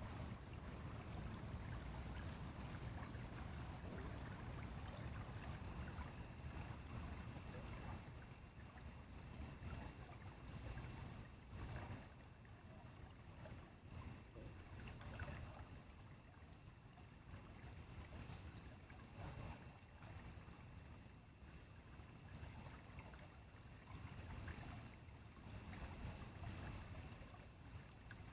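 Flowing stream running steadily, with a low rumble of wind on the microphone. A faint high hiss sits over it for about the first ten seconds.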